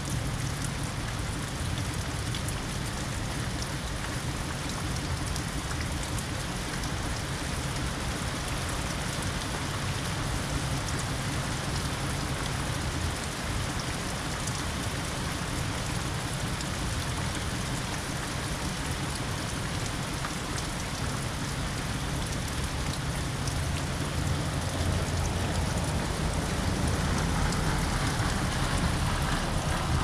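Steady rain falling on a wet road, lawn and shrubs, an even hiss of drops. In the last few seconds the sound swells as a car's tyres swish along the wet road.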